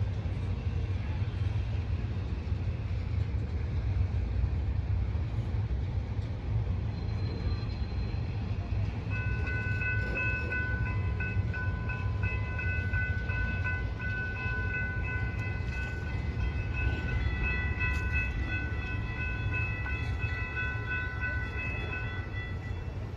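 Florida East Coast Railway freight train's cars rolling past with a steady low rumble. From about nine seconds in, a high whine of several pitches sounds over it, breaking off and resuming, until just before the end.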